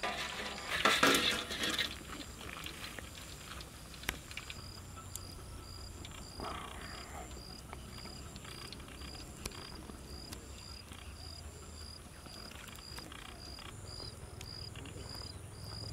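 A short scraping clatter about a second in as fried wings are tipped off a metal strainer onto a metal tray, then an insect chirping in a steady rhythm of short high-pitched pulses, about two a second, from about four seconds in.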